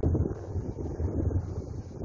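Wind buffeting the microphone in uneven gusts, a low rumble with a faint hiss over it.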